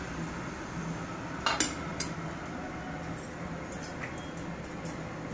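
Kitchenware clinking: two sharp metal knocks about a second and a half and two seconds in, then a few lighter ticks, over a steady low hum.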